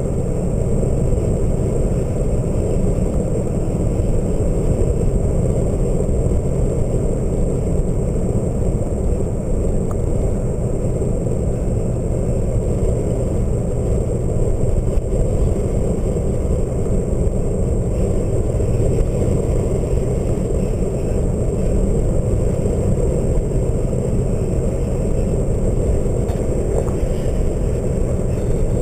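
Steady rush of wind buffeting the microphone and road noise from a vehicle driving at speed, heard from inside the cab with the window open; a deep, unchanging rumble throughout.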